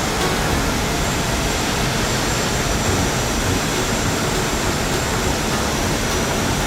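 A steady, loud rushing noise with no clear pitch or rhythm.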